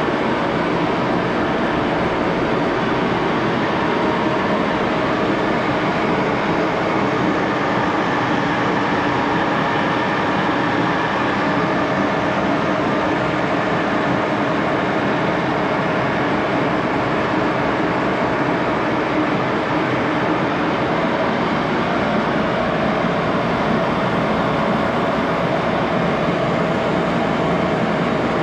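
1941 Axelson 14x30 engine lathe running steadily and smoothly under power, spindle turning a low-carbon steel bar during a turning cut, with a constant mechanical hum of gears and drive.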